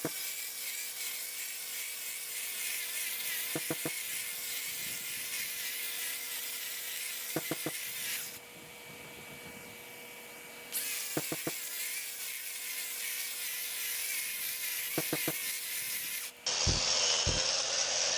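Bosch GWS 125 SC brushless cordless grinder with a segmented diamond cup wheel grinding rough concrete, a steady gritty whir with the dust vacuum running. The grinder is dragging heavily on a battery that is not fully charged. The sound drops quieter for about two seconds around the middle, there are a few short clicks, and it changes to a louder, sharper sound near the end.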